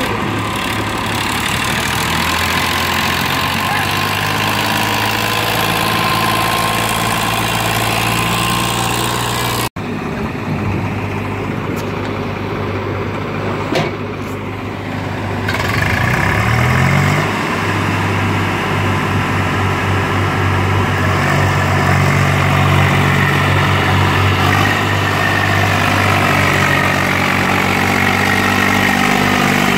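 Sonalika tractor's diesel engine running steadily, hitched to a trailer full of soil. After a sudden cut about ten seconds in, a Swaraj 735 XT's three-cylinder diesel engine revs up around sixteen seconds in and then runs steadily and louder under load, hauling a full soil trailer.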